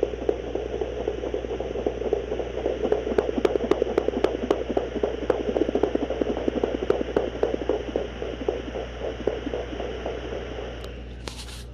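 Handheld fetal Doppler speaker playing the rapid, pulsing heartbeats of puppies inside a pregnant dog at day 48 of gestation, over a steady hum. The pulsing fades out near the end, followed by a short hiss.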